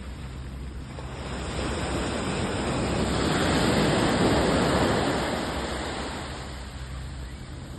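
Sea waves on the shore: one wave swells up, breaks and washes in, then fades away.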